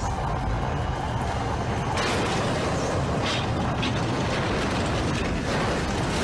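Cartoon sound effects of a flying ship crashing: a continuous heavy rumble with mechanical grinding that swells about two seconds in, with a couple of sharp knocks a little later.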